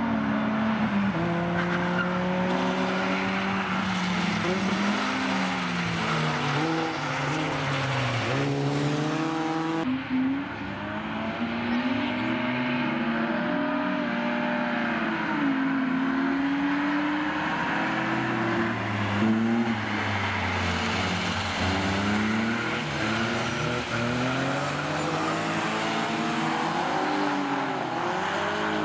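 Rally car engines revving hard and dropping back again and again as the cars accelerate, shift gear and brake through the corners, with several cars passing in turn. The sound changes abruptly about ten seconds in.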